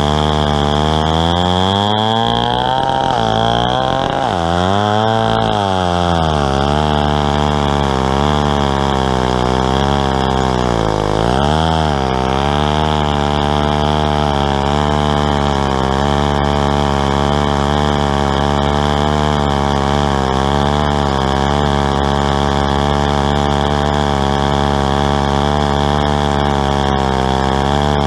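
Stihl 090 two-stroke chainsaw running flat out under load in a chainsaw mill, ripping a lengthwise slab cut through a tulip poplar log. The engine pitch sags and recovers as the saw bogs in the cut: twice around three to five seconds in, again near eleven seconds, and once more at the very end.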